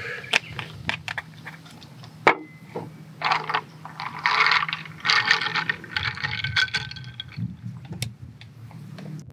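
Ice cubes clinking and scraping against a glass as a soda-topped plum sour is stirred: a few sharp single clinks and several stretches of rattling ice.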